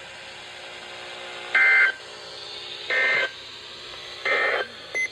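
NOAA Weather Radio's EAS end-of-message (EOM) code: three short, harsh buzzing data bursts about 1.3 s apart, each about a third of a second long. They signal the end of the Severe Thunderstorm Warning alert.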